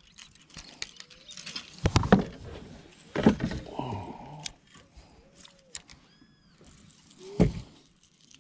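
Fishing tackle being handled in a plastic kayak: small clicks and rattles from a spinning reel and lure, and three dull knocks, about two seconds in, a second later, and near the end.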